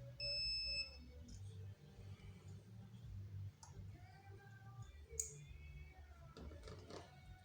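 An electronic beep, a steady high tone lasting under a second, right at the start, followed by faint low background noise and a single sharp click about five seconds in.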